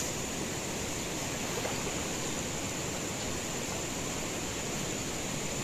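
Steady rush of river water running over rocky riffles, an even hiss with a thin high-pitched edge to it.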